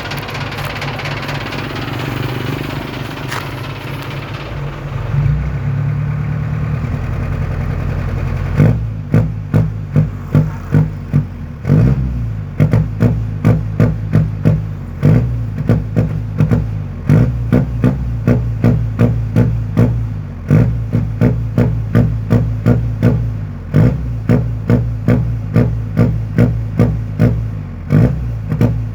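Motorcycle engine through an opened-up aftermarket exhaust, idling steadily at first, then about eight seconds in it is revved with quick, repeated throttle blips, one and a half to two a second, in runs separated by short pauses.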